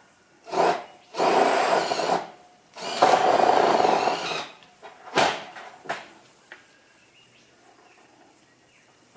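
A power tool working wood in four bursts: two long runs of about a second and a half each between two short ones.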